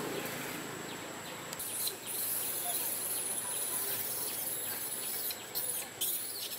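High-pitched, steady insect shrilling in the trees, starting about two seconds in and breaking off briefly a couple of times near the end, over outdoor background hiss.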